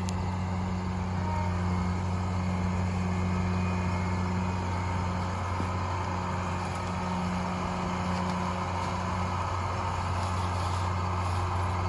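Farm vehicle engine running steadily with a constant low hum.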